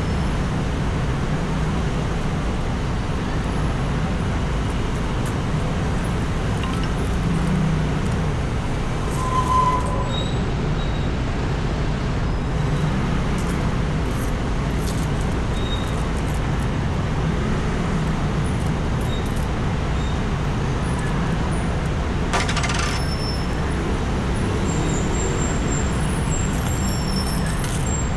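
Steady street traffic noise, vehicles running past with a continuous low rumble. A brief tone sounds about nine seconds in, and a short click comes about twenty-two seconds in.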